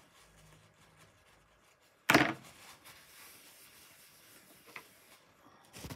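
A paper tissue being handled: one sudden loud swish about two seconds in, then softer rustling of the tissue.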